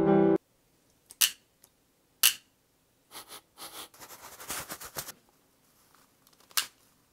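A GFCI outlet being handled and put back together: a few sharp clicks, with a stretch of light clattering and ticking of small plastic parts in the middle.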